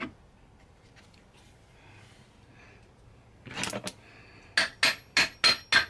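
A quick series of sharp metallic taps on a transfer case, about three a second, each with a short high ringing note, starting near the end after a brief scrape about halfway through.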